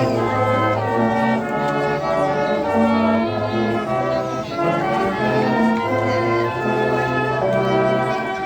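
Brass ensemble music: held chords over a bass line that changes note every second or so.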